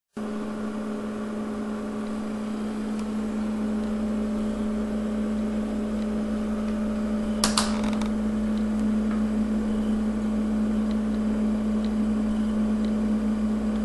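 A steady hum with one constant low tone; about halfway through, a brief clatter as a foot steps onto a digital bathroom scale.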